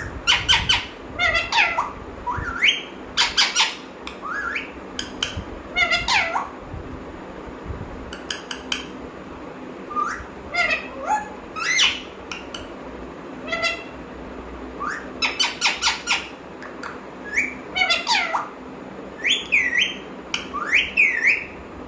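Pet parrot calling: a long run of short squawks and whistled calls that slide up or down in pitch, some fired off in quick clusters, with short pauses between.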